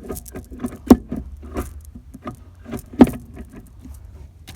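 Manual gear shifter being worked through the gears, a run of small clicks and knocks with two sharper clunks, about a second in and about three seconds in. The shifter bushings have just been replaced, leaving no play in the shifter.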